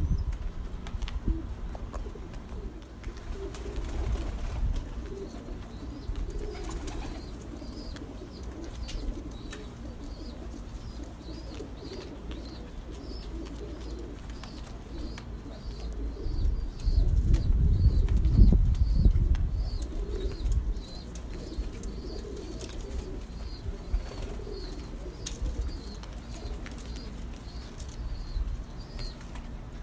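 Pigeons cooing over and over, with small birds chirping quickly and steadily above them. A louder low rumble comes in about halfway through.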